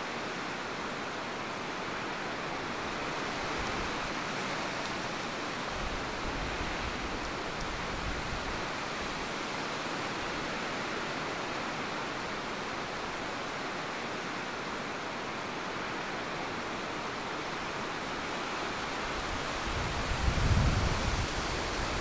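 Steady rushing wind outdoors, with gusts buffeting the microphone in low rumbles about two seconds before the end.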